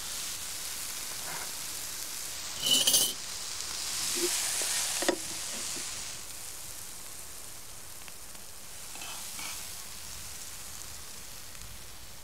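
Food sizzling in a frying pan, a steady hiss, with a short loud scrape about three seconds in and a sharp click near five seconds; the sizzle is fainter in the second half.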